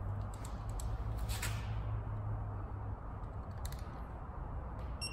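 A few faint, sharp clicks from a click-type torque wrench as the fuel rail bolts reach their torque of 79 inch-pounds, over a steady low hum.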